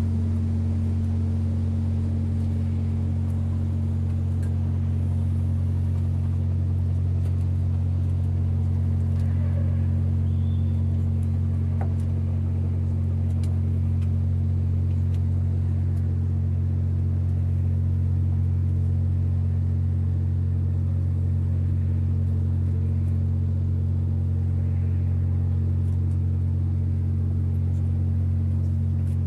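Steady deep drone of a naval patrol vessel's engines and machinery heard on deck: a low hum on a few fixed pitches that holds unchanged.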